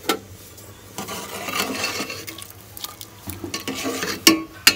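A metal spoon stirring and scraping inside a metal cooking pot, with sharp clinks of spoon on pot at the start and twice near the end.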